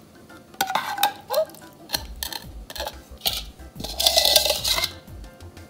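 Soy-and-teriyaki marinade poured from a ceramic bowl over raw chicken wings in another bowl, with light clinks of bowl and spoon against the rim and a louder scrape about four seconds in.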